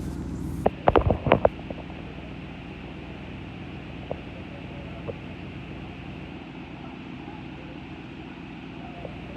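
A bucket truck's engine running with a steady low hum. About a second in comes a quick run of loud knocks and thuds, after which the hum sounds quieter.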